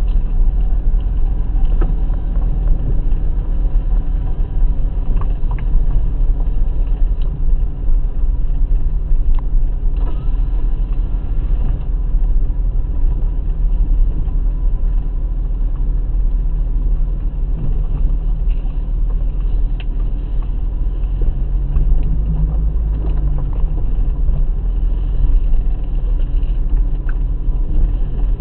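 BMW E30 with an M50B20 2.0-litre inline-six driving slowly on a rough dirt track, heard from inside the car: a steady low engine and road rumble with occasional clicks and knocks. The engine note rises and falls briefly about three quarters of the way through.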